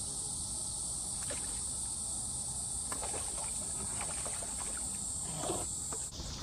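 A steady, high-pitched insect chorus that cuts off suddenly near the end, with a few faint short knocks.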